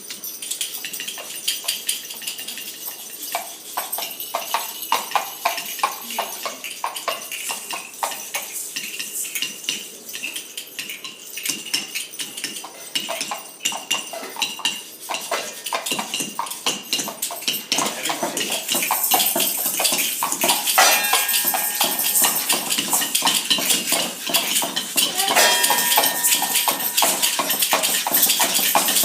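Many small hand percussion instruments played together: a dense, continuous clatter of metallic clinking, rattling and jingling. It grows fuller and louder about 18 seconds in, and bell-like ringing tones come in around 21 and 25 seconds.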